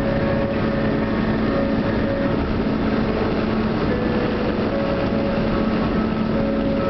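Steady road and wind noise of a moving car, heard from inside the cabin, with faint held tones coming and going over it.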